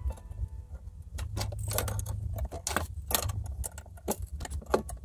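Metal plate and steel C-clamps being handled on a bench-top bending rig: a run of irregular sharp clinks and clicks, with a low steady hum underneath.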